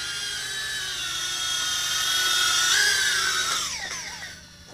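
Inductrix 200 mini quadcopter's motors and propellers whining in flight, growing louder for a few seconds, then falling in pitch and fading near the end as the drone throttles down to land.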